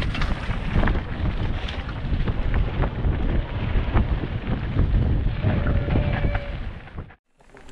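Wind buffeting a helmet camera's microphone over the rumble of tyres on a dry dirt trail and the rattle of a mountain bike descending rough singletrack. The sound drops out abruptly near the end.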